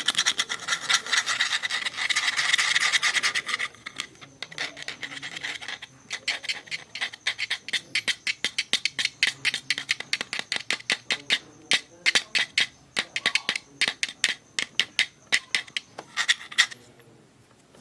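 Hands scratching and rubbing packaging during an unboxing, dense and rasping for the first few seconds. Then a fast run of sharp clicks and taps, about four a second, stops shortly before the end.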